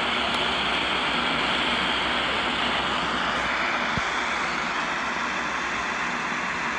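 AM radio static: a steady hiss from a Pensonic Microblast portable radio's speaker while it is tuned between stations, with one soft knock about four seconds in.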